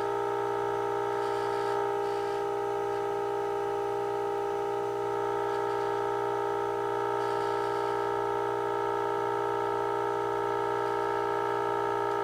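Steady test tone from the 1948 Emerson AA5 radio's speaker, held unchanged while the set is fed a signal for IF alignment.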